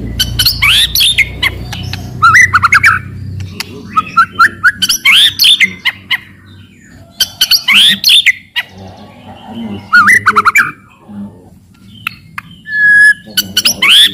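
White-rumped shama (murai batu) singing loudly: bursts of quick, swooping whistled notes mixed with harsh clicking chatter (cetrekan), coming every second or two with short pauses between.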